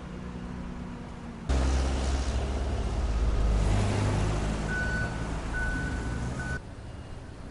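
Road traffic passing close by on a city street: car engines and tyre noise that start suddenly about a second and a half in and cut off abruptly about a second before the end. Three short, steady high beeps sound in the second half.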